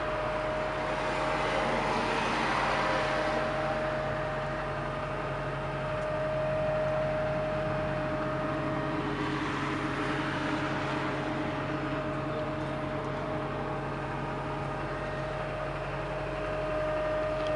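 Cat M315D wheeled excavator's diesel engine running steadily, heard from inside the cab, with a steady high whine over the engine note. The sound swells twice, about two seconds in and again about ten seconds in.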